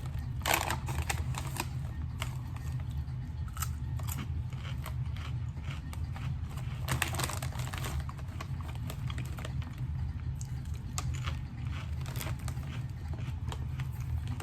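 Ruffles ridged potato chips being crunched and chewed: irregular crisp clicks, with a denser burst about seven seconds in, over a steady low hum.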